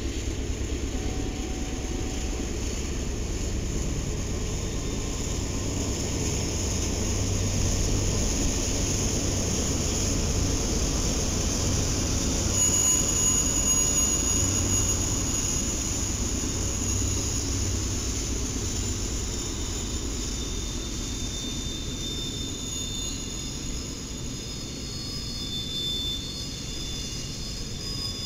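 Train rolling past on the rails with a steady low rumble of wheels on track. From about halfway in, thin high-pitched wheel squeals join the rumble.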